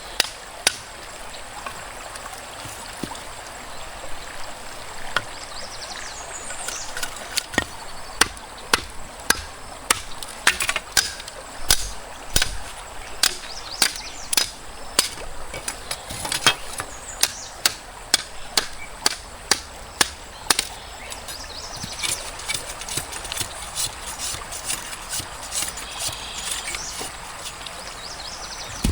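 Repeated sharp chopping strikes, often one or two a second and coming fastest through the middle, over the steady rush of a stream.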